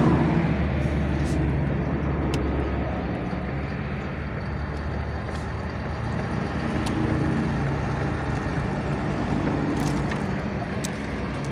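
Steady rumble of passing motor traffic, with a low engine hum that swells about seven seconds in and eases off again; a few faint clicks sit on top.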